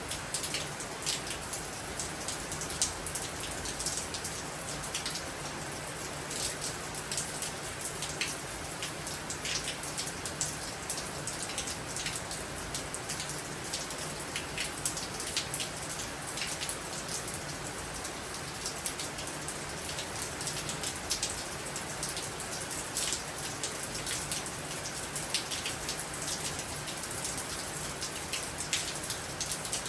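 Heavy rain pouring down steadily, with many sharp individual drop hits scattered through the steady hiss.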